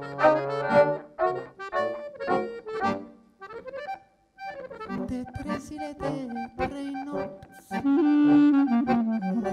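Accordion playing a fast instrumental break over a held bass note, stopping briefly about three and a half seconds in; then clarinet and accordion come back in together with a strong low melody line, in a klezmer-style folk tune.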